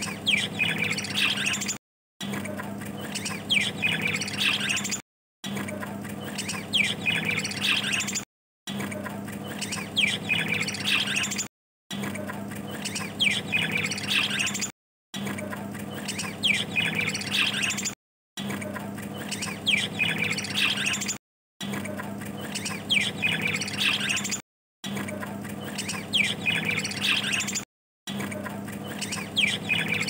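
Budgerigars chattering, with high chirps and squawks. The same short stretch of chatter repeats about every three seconds, each repeat cut by a brief silence, over a steady low hum.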